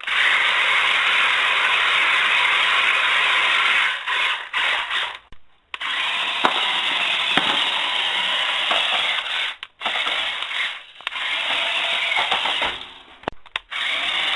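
Small electric drive motors and plastic gearboxes of a 1/24-scale radio-controlled M1A2 Abrams toy tank running with a steady mechanical whirr as it drives. The sound cuts out and starts again several times as the tank stops and moves off.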